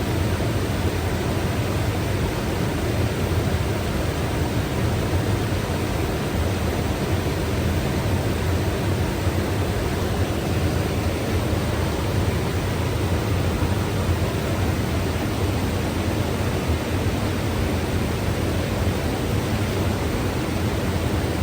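Mountain river running, a steady, even rush of water with no breaks.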